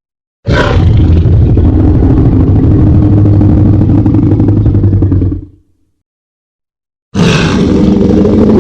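Composite creature roar sound effect, built by layering dinosaur, big-cat and other monster roars. One deep, growling roar of about five seconds, then a second roar starts near the end.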